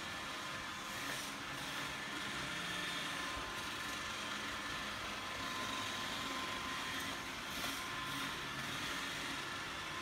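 iRobot Roomba 871 robot vacuum running as it drives across a hardwood floor: the steady whir of its suction motor and brush rolls, with a faint high whine over it.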